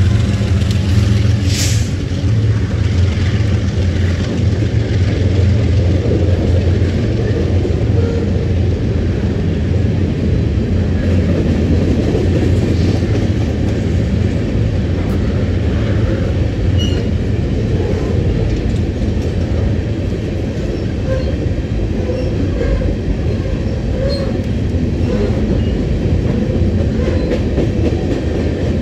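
A train of empty steel coal hopper cars rolling past: a steady rumble of steel wheels on rail, with scattered faint squeals and clicks. A trailing diesel locomotive's engine hum is heard in the first couple of seconds.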